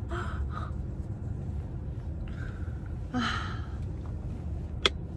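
Steady low rumble inside a car cabin, with a woman's soft breathing and a breathy sigh about three seconds in, and one sharp click near the end.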